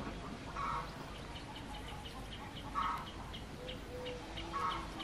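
Birds calling: a short call repeats about every two seconds, and a quick run of high chirps, about four a second, starts a second in.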